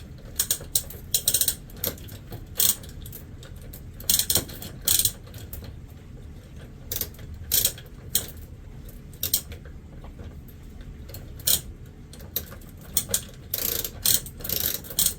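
Manual chain hoist being worked, its ratchet clicking and its chain clattering in irregular bursts of sharp clicks.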